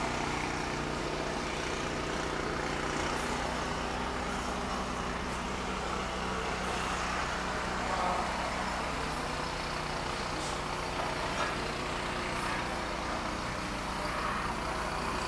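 Steady low machinery hum with a constant hiss, unchanging throughout.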